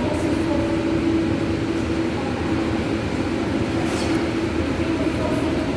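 Steady mechanical hum of an indoor pool room's machinery, with one constant low tone, over a light wash of water moving as a child swims. A short sharp sound comes about four seconds in.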